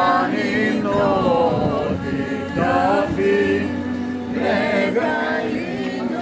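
A crowd of men and women singing a Greek Orthodox Good Friday hymn together, a slow chant with held notes.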